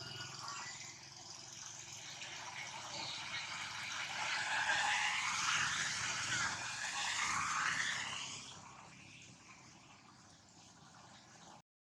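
Monkeys screeching in high, wavering calls that are loudest from about four to eight seconds in, then fade.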